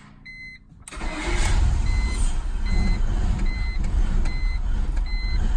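BMW E46 engine being started about a second in, then running unevenly and loudly, typical of the rough idle this car suffers from. A single-pitched electronic beep repeats about once every second throughout.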